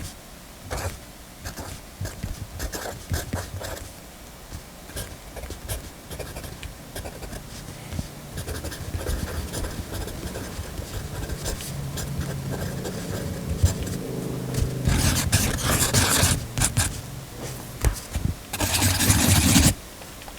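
Scripto mechanical pencil's lead scratching across paper in short strokes, with scattered clicks and taps. The scratching is densest and loudest in two bursts near the end.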